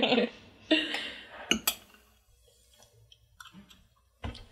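Laughter trailing off, then spoons clicking against glass dessert dishes and quiet eating sounds as the peach jello salad is tasted, with a sharper knock near the end.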